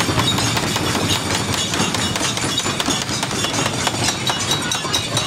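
Dinner crowd making a steady clatter of many rapid, sharp claps and knocks.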